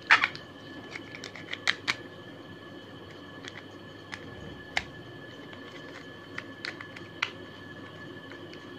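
Hard plastic clicking and tapping as a toy train carriage is lifted from its plastic tray and turned over in the hands, with a louder clatter right at the start and scattered clicks after. A faint steady high whine lies underneath.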